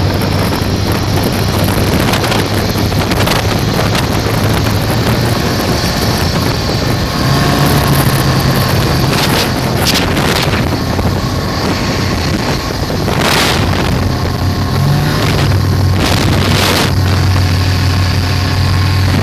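Motorboat under way powered by a turbocharged Volvo B21 four-cylinder engine, running steadily at speed with its note rising a couple of times and settling again. Wind buffets the microphone in gusts over the engine.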